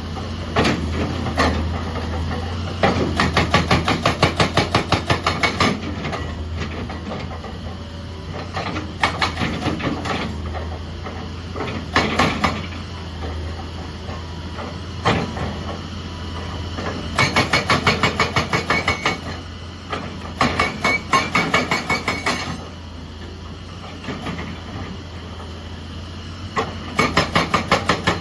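Excavator-mounted hydraulic breaker hammer striking in runs of rapid blows, several a second, each run lasting one to three seconds, over the excavator's steady diesel engine hum.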